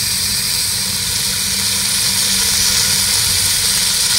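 Sliced onions, green chillies, bay leaves and whole spices sizzling in hot oil in a large pot, a loud, steady hiss as they start to fry.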